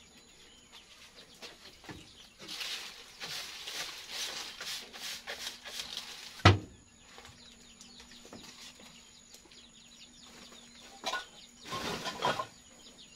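Dry leaves and stalks rustling and crackling as they are handled and pushed into a wood-fired hearth as fire starter, with one sharp knock about six and a half seconds in and another spell of rustling near the end.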